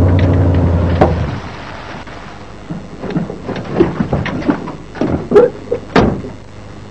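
A low steady hum ends about a second in with a knock. It is followed by a run of scattered clunks and knocks as a pickup truck's door is opened and handled, with two sharp thuds near the end.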